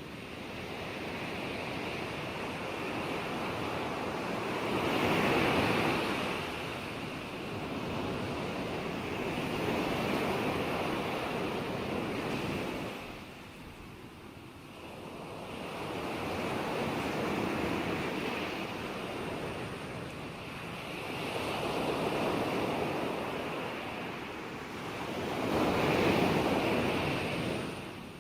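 Ocean surf: waves breaking and washing in, the rushing swelling and fading every four to five seconds, with a quieter lull about halfway through.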